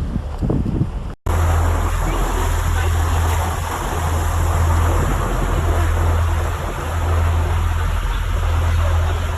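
Motorboat under way: a steady low engine drone and rushing wind buffeting the microphone, after a short dropout about a second in.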